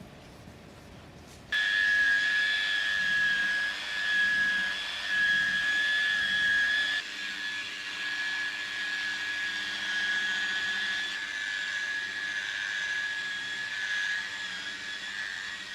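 Compressed air hissing with a steady high whistle from an air tool in a car paint shop. It starts abruptly about a second and a half in and drops a little in level about halfway through.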